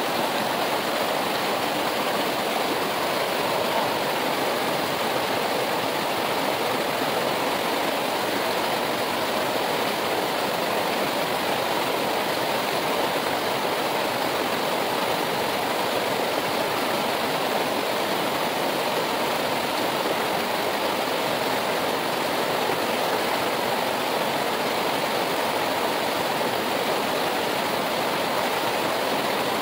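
Steady rush of a fast-flowing mountain river, an even unbroken noise of water over stones.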